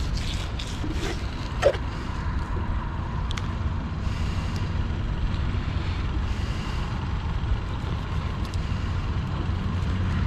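Fillet knife working a fish fillet on a plastic cleaning board: a few light clicks and knocks, the loudest about a second and a half in, over a steady low rumble.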